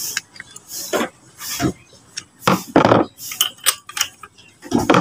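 Metal tools clinking and knocking: a tube-type spark plug socket turned with a screwdriver through its handle hole, fitting a new spark plug into a Yamaha Mio Sporty scooter's engine. Irregular short clinks, with a few louder knocks around the middle and near the end.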